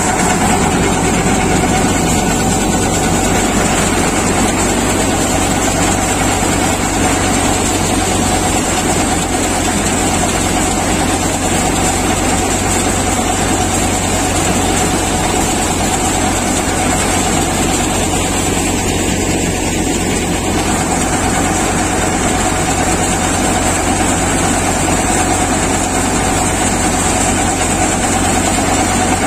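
Tractor-driven J.S. multicrop thresher running steadily while threshing urad: a constant loud machine noise of the threshing drum and fan, with the tractor engine running under it. It stays even throughout, with a steady hum.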